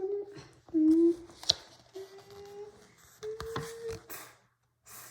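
A child humming or vocalizing a few short held notes, each steady in pitch, with a couple of sharp clicks between them.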